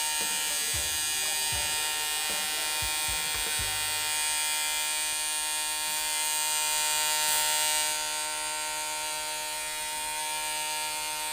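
Compressor nebulizer running: a steady electric buzz with a hiss above it. A few soft low knocks come in the first four seconds.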